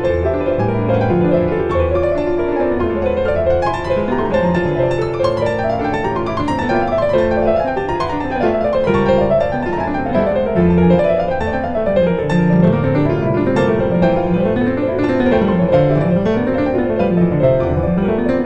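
Background piano music: flowing arpeggios running up and down.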